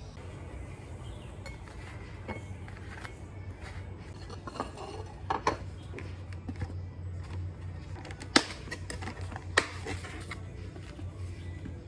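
Kitchen handling noises: a pan, a plate and other kitchenware clattering and knocking, with scattered clicks over a steady low hum. Two sharp, loud snaps near the end come as a clear plastic clamshell fruit box is handled on a wooden board.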